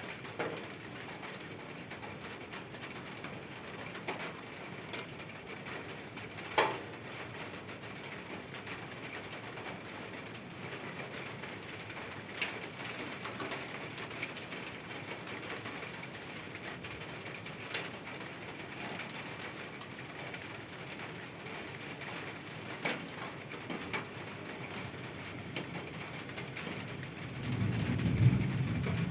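Steady rain falling, with a few sharp drips or taps landing here and there, the strongest about six and a half seconds in. A low rumble swells in near the end.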